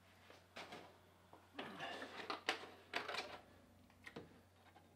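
A handful of faint knocks and rustles of handling as a plastic milk bottle is picked up.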